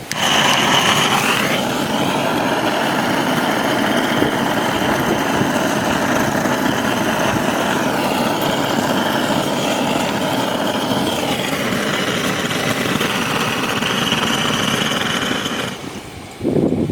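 Handheld gas torch burning at full flame with a loud, steady hiss, used to light hard firewood. It cuts off shortly before the end, then gives one short second blast.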